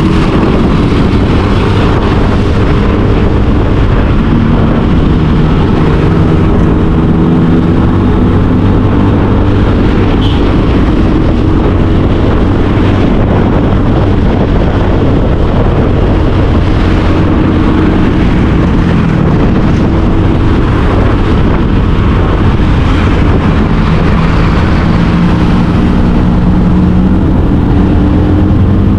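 Small motor scooter engine running at riding speed, its hum shifting up and down gently with speed, with wind rushing over the microphone.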